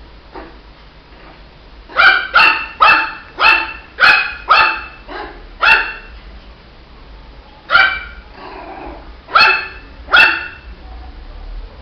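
Shih Tzu puppy barking: a quick run of about eight short, high-pitched barks starting about two seconds in, then a pause and three more spaced barks near the end.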